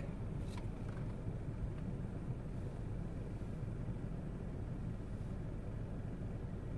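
Steady low rumble of a car's engine and running gear heard from inside the cabin while it waits or creeps forward in a queue.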